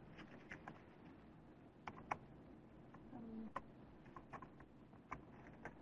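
Near silence: faint room hiss with scattered soft clicks and a brief low voice sound about three seconds in.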